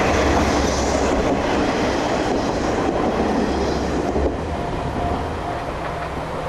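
KiHa 40-series diesel railcar running along the track, its engine and wheels making a steady rumble that eases slightly over the last couple of seconds.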